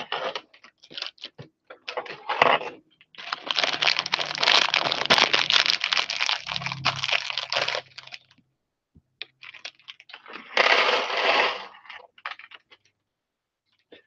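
A plastic bag of LEGO pieces being emptied onto a tabletop: scattered clicks and crinkles of the bag, then a long rattle and clatter of bricks lasting about four seconds, and a second, shorter spill of about a second near the end.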